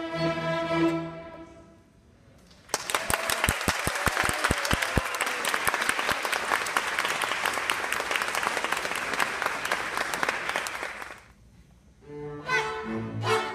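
A youth string orchestra of violins, violas and cellos holds a final chord that dies away about two seconds in. Then comes about eight seconds of applause, and near the end the strings begin a new piece.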